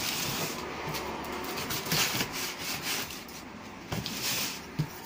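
Knife cutting through packing tape on a cardboard box in several scraping strokes, with the cardboard rubbing and knocking as the box is turned.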